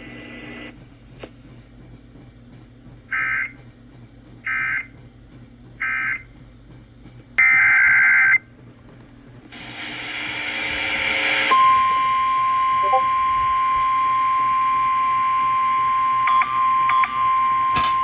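Emergency Alert System data signals: three short screeching data bursts, the end-of-message code, then one longer burst. After a stretch of radio hiss, the steady single-pitch 1050 Hz NOAA Weather Radio alert tone starts about eleven seconds in and holds.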